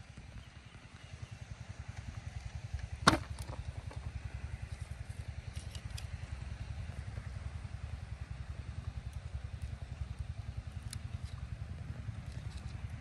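Small engine running steadily with a fast, even low putter, and one sharp click about three seconds in.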